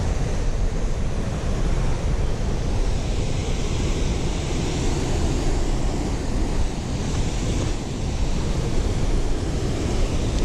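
Wind buffeting the microphone over the steady rush of water pouring over a spillway.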